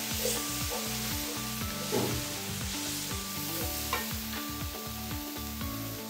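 Onions and spices sizzling in hot oil in a nonstick wok while a wooden spatula stirs and scrapes through them in short strokes.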